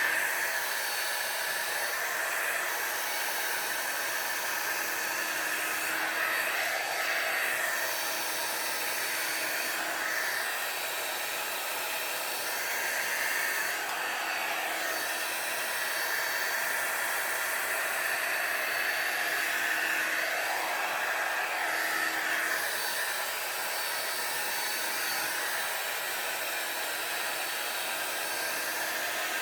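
Handheld hair dryer running steadily on medium heat while blow-drying hair, its whoosh shifting slightly every few seconds.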